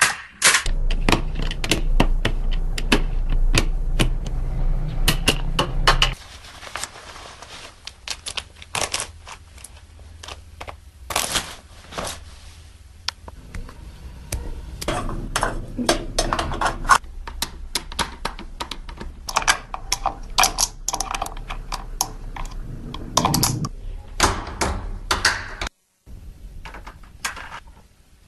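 A long run of irregular sharp clicks and taps, with a low hum beneath them for the first six seconds that then stops.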